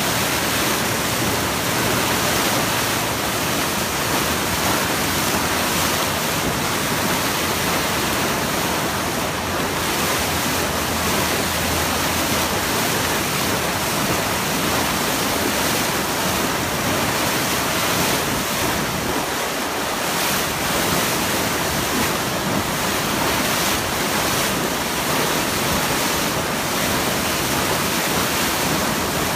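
River water pouring over a log and splashing into foaming white water: a steady, loud rush.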